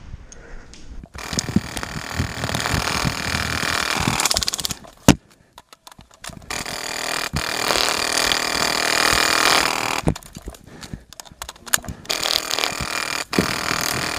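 Airsoft rifles firing long rapid bursts, a dense rattling buzz that stops and starts. There is a single sharp crack about five seconds in, then a short gap.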